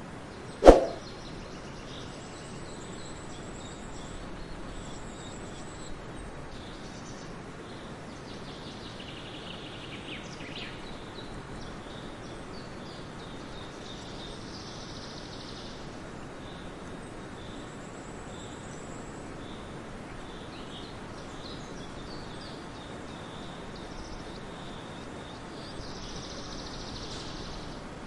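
Outdoor nature ambience: a steady background hiss with faint, scattered high bird chirps and calls. A single sharp knock with a brief ring comes under a second in, the loudest sound of the stretch.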